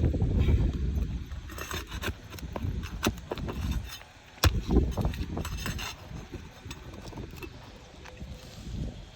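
Irregular knocks and scraping of hand tools working asphalt roof shingles, with the sharpest knock about four seconds in, over a low rumble.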